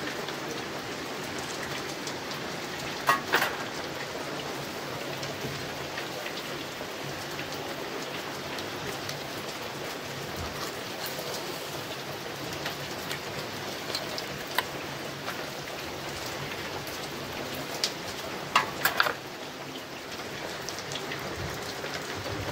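Steady rain falling and pattering on surfaces, with a few sharp clinks of metal kebab skewers being handled, a pair about three seconds in and a cluster near the end.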